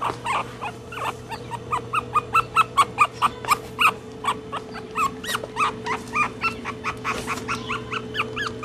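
Chihuahua puppies whining in a rapid run of short, high-pitched yips, about four to five a second, over a steady low hum.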